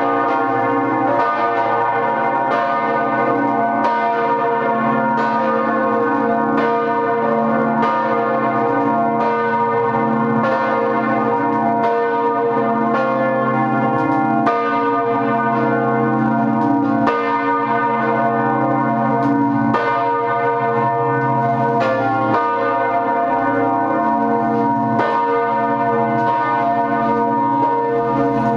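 Twenty church bells ringing together in full peal, heard from inside the belfry: a dense, unbroken clangour of overlapping strikes over many steady humming tones, holding at an even loudness.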